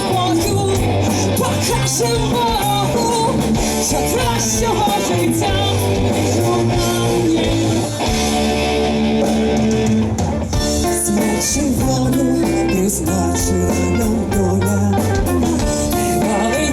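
Hard rock band playing live, loud and continuous, with guitar to the fore.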